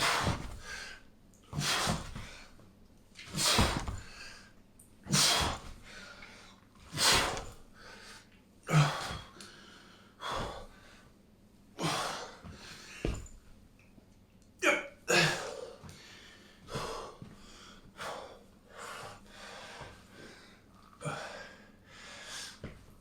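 A man breathing hard under exercise strain, a sharp, forceful exhale about every one and a half to two seconds as he works a set to muscle failure.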